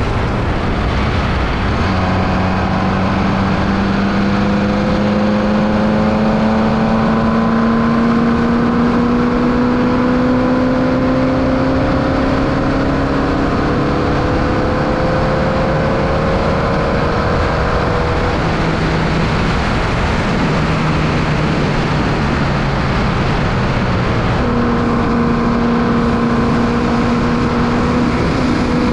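Onboard sound of a Formula Vee's 1200cc Volkswagen air-cooled flat-four running hard under a thick haze of wind and road noise. The engine note drops about two seconds in, then climbs slowly for some sixteen seconds as the car accelerates, falls away, and picks up again at a steady pitch near the end.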